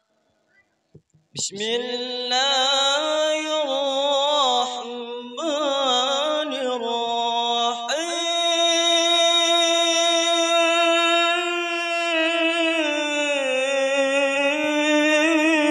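A male qari reciting the Qur'an in the melodic tilawah (qiroat) style: long, richly ornamented held notes with a wavering vibrato, in a few phrases with brief pauses between them. It begins about a second in, and from about eight seconds in one long phrase is held almost to the end.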